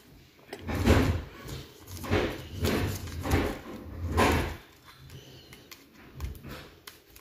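Hands rustling a clear plastic trading-card sleeve while sliding a card into it, in about five rustling, bumping bursts in the first half, then quieter rubbing.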